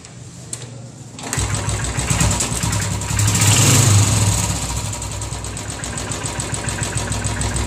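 Royal Enfield Twinspark 350 single-cylinder UCE engine being started. It catches about a second and a half in, revs up briefly and settles to a steady idle. A noise from inside the engine is being demonstrated as a fault.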